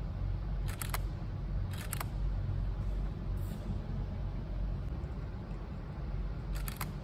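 Nikon camera shutter firing three times, each a short cluster of quick clicks: twice about a second apart near the start, and once near the end. A steady low rumble runs underneath.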